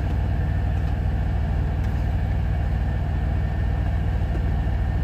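Steady low rumble of an idling truck engine, heard inside the truck's cab.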